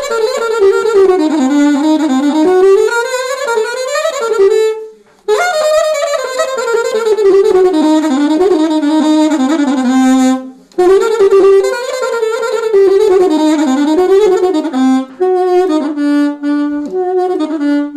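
Solo saxophone playing a winding, ornamented melody, with two short breath pauses about five and ten seconds in. Near the end the notes become shorter and more separated.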